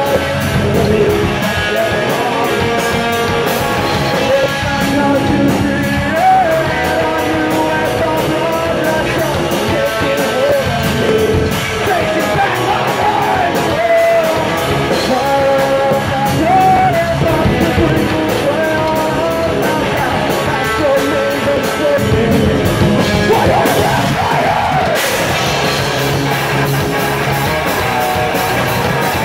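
Live rock band playing: electric guitars, bass guitar and drums, with a steady, quick drum beat and a singer singing and yelling into the microphone.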